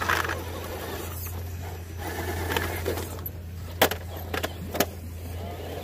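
Radio-controlled scale rock crawler truck inching down granite: tyres and chassis scraping over the rock, with a few sharp knocks, the loudest about four and five seconds in.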